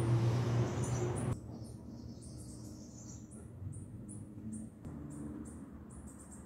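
An insect chirping, a short high-pitched chirp repeated about two to three times a second. For the first second or so a louder low steady hum with a hiss runs underneath, then cuts off abruptly.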